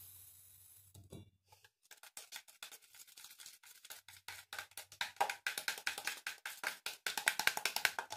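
A slime mixture being stirred fast in a plastic cup, the stirrer clicking and scraping against the cup in a quick run of taps that grows louder and denser over the last few seconds, then stops.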